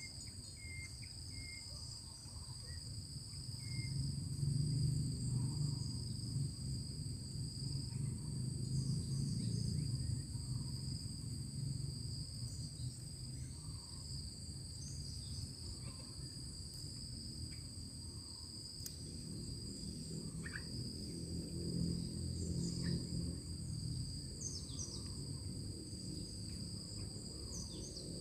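Insects, crickets or similar, trilling steadily in two high tones, over a low rumble that swells up and fades away twice.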